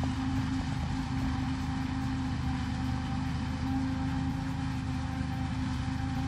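Tractor engines and a tractor-drawn forage harvester running steadily while chopping maize: one even, unbroken drone with a held hum in it.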